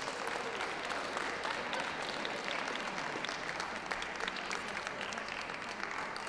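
Ringside audience applauding, many hands clapping at a steady level.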